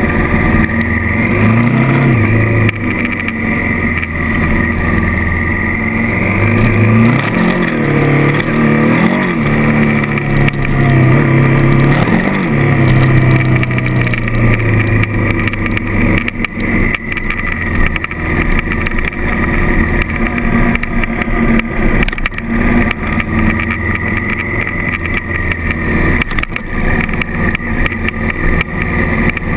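Honda CRF1000L Africa Twin's parallel-twin engine running under way, its revs swinging up and down several times about a third of the way in, over a steady rush of wind noise.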